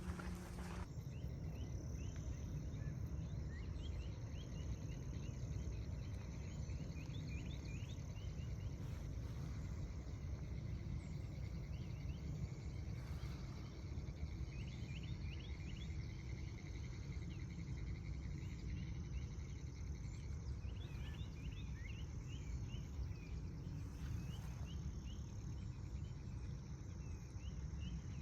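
Outdoor insect chorus with a steady high drone, over a deep steady rumble, with clusters of short rapid bird chirps coming and going.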